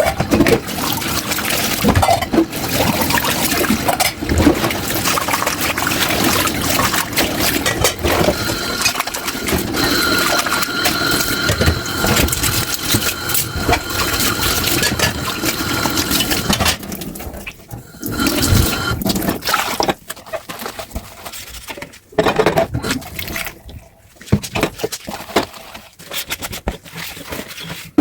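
Tap water running steadily into a kitchen sink over dishes, then shut off about two-thirds of the way through. After that come scattered short clinks and knocks of dishes being handled.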